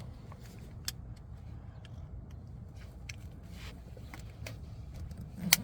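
Seat belt being pulled across and buckled by a small child: soft rustles and small metallic clicks of the belt webbing and buckle, then a sharp click near the end as the buckle latches. Under it runs the steady low rumble of the car.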